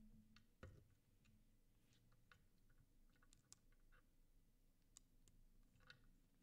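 Near silence with faint, scattered small clicks and taps from hands handling a mechanical keyboard's switch-loaded PCB and plate assembly over its open case, with one slightly louder knock just under a second in.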